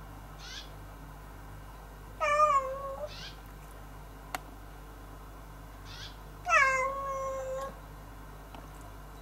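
A house cat meowing twice: two drawn-out calls that drop in pitch and then level off, the second one longer. A single sharp click sounds between them.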